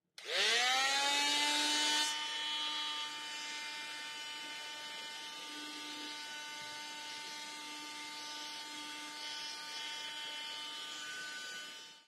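A WORKPRO oscillating multi-tool starts up and its motor winds up over about a second to a steady whine, with a triangular sanding pad rubbing against plywood into a corner. It is loudest for the first two seconds, then runs steadily quieter and stops near the end.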